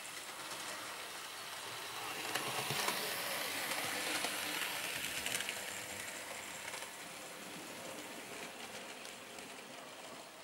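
A Hornby OO gauge LMS Stanier Class 4P model locomotive and its coaches running along the track: a steady rolling rattle with scattered clicks that grows louder for a few seconds and then fades as the train moves away.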